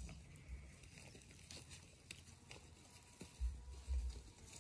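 Faint rustling, crunching and small clicks of a puppy biting and tearing at flowers and petals in the grass, with two low thumps near the end.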